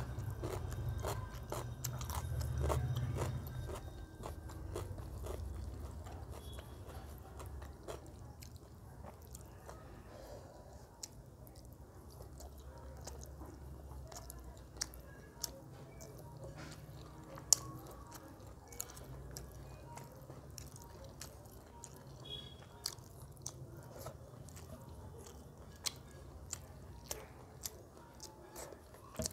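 Close-miked chewing and mouth sounds of a person eating chicken curry with rice, with many small wet clicks and smacks. The chewing is loudest in the first few seconds.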